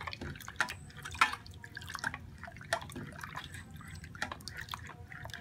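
A plastic spoon stirring liquid in a metal pot: irregular sloshing and splashing, with many light clicks of the spoon against the pot.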